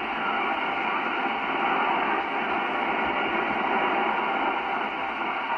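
Steady FM receiver static from the Yaesu FT-847 transceiver's speaker: an even rushing hiss with no station coming through on the satellite downlink. It sounds narrow and radio-like, with nothing above the voice range.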